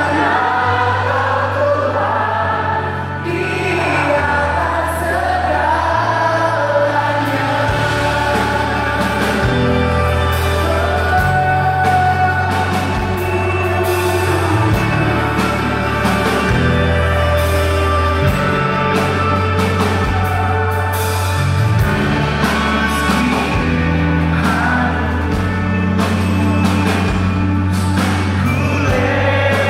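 Live worship band and singers performing a song in Indonesian: voices over guitars, keyboards, drums and bass, with sustained bass notes changing every couple of seconds. Heard from among the audience in a large hall.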